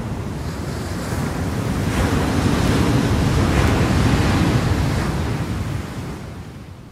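A rushing, surf-like noise that swells to its loudest about three to four seconds in, then fades away.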